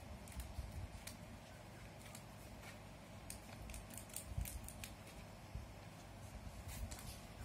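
Small scissors snipping, with a scattering of faint, irregular clicks as a strip of red sticky tape is cut from its roll on paper.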